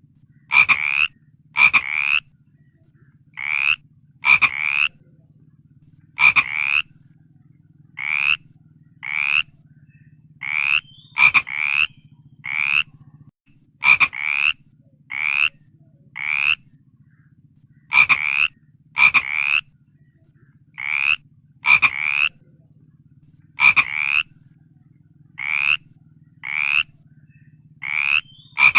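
Frogs croaking: short calls about once a second, often in close pairs, some opening with a sharp click, over a low steady hum.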